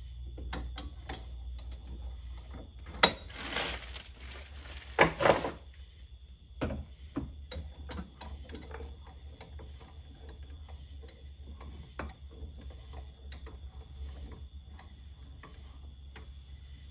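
Metal clanks and knocks of a wheel hub being handled at a bench vise and set down on a steel tool-cabinet top. A sharp clank comes about three seconds in, followed by a second of rattling, then two loud knocks around five seconds, then scattered lighter taps.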